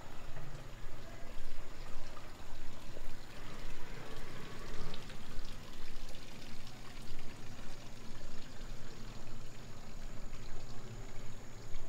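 Water running, pouring and trickling steadily, with a fluttering, uneven level.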